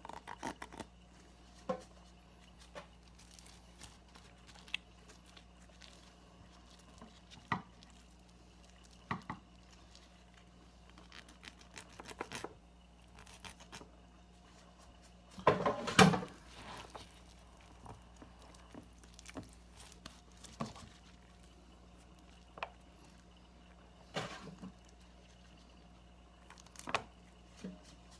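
Knife and gloved hands trimming fat off a raw rack of ribs on a stone countertop: scattered soft taps and clicks of the blade and meat against the counter, with a louder knock about halfway through.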